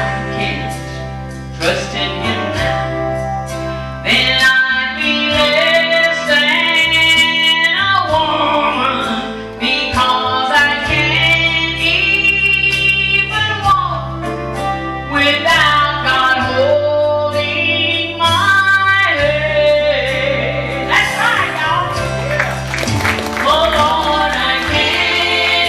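Country gospel music: a lead melody of long, sliding notes over a steady bass and guitar backing.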